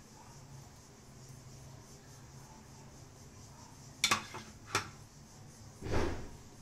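Quiet kitchen room tone, then two sharp clicks about four seconds in as a utensil knocks against the glass baking dish, followed by a short dull thump near the end.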